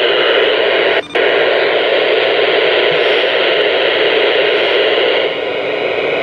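President McKinley CB radio receiver giving out steady static hiss through its speaker, cut off briefly about a second in.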